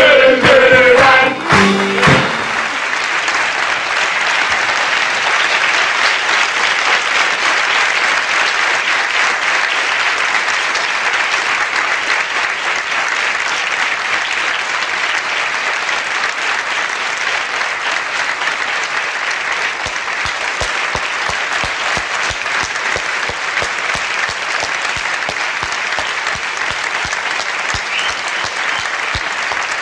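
A group of voices singing together with music, ending about two seconds in, then a theatre audience applauding steadily.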